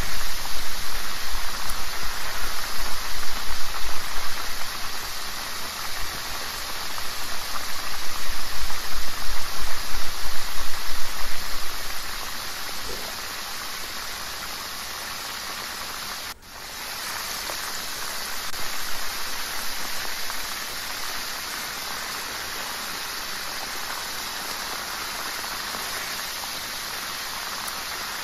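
Flour-dredged crab pieces deep-frying in oil at medium heat: a steady sizzling hiss, louder and more uneven for the first twelve seconds or so, then settling quieter and even, with a brief dropout about sixteen seconds in.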